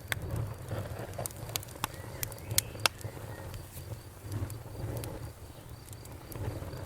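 Campfire crackling: a run of sharp wood pops in the first three seconds, the loudest near the end of that run, then sparser crackles over a steady low rumble of the flames.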